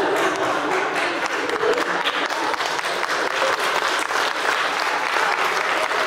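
Audience applauding: a dense, steady patter of many hands clapping.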